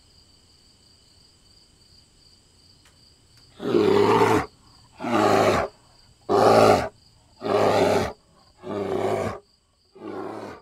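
A series of six loud, rough roaring grunts about a second and a half apart, the last two weaker. Under them runs a faint steady high-pitched trill.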